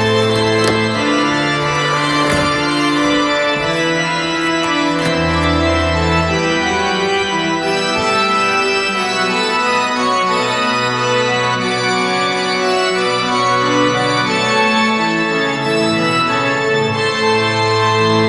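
Background music of slow, held keyboard chords that change every second or two, with no beat.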